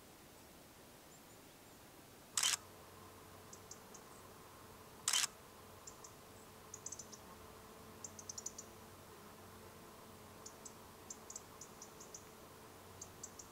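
Single-lens reflex camera shutter clicking twice, about two and a half and five seconds in. Afterwards faint high ticks come in short clusters.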